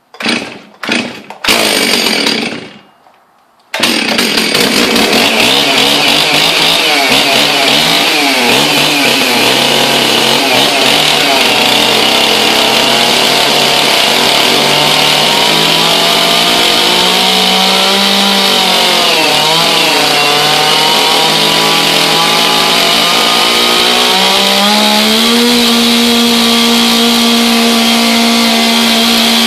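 Stihl 036 two-stroke chainsaw being cold-started on full choke: a few short bursts as the starter cord is pulled, then the engine catches about four seconds in and keeps running. Its pitch sags and wavers in the middle, then rises near the end and holds steady at a faster speed.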